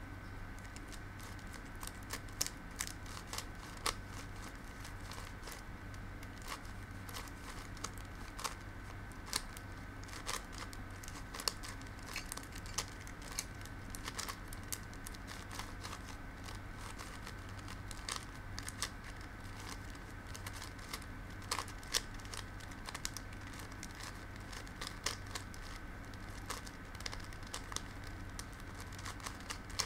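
A Shengshou kilominx puzzle being turned quickly by hand: irregular plastic clicks and clacks as its faces rotate and snap into place, over a steady faint electrical hum.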